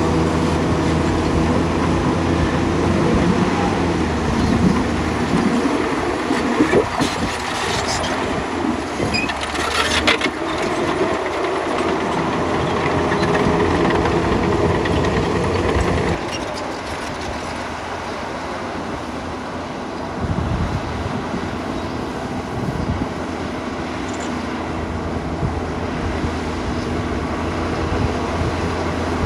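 Diesel engine of a tracked earthmoving machine such as a bulldozer working under load, with metal clanks and track clatter. The engine settles to a lower, quieter pitch about halfway through.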